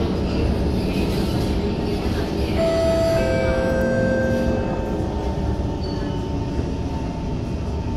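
Inside a C151 metro train coasting and braking into a station: a steady rumble of steel wheels on the rails, with a motor whine that steps down in pitch as the train slows.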